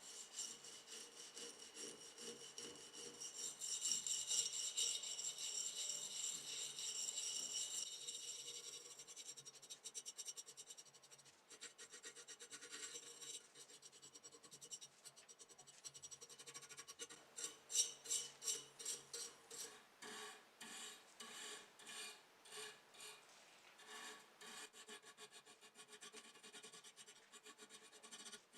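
Repeated hand rubbing strokes on a model car part, like filing or sanding, with rhythmic back-and-forth scraping that comes in quick runs of about three strokes a second.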